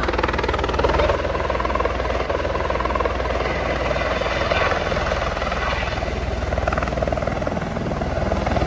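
Helicopter running, its rotor blades chopping in a fast, steady rhythm over the engine noise.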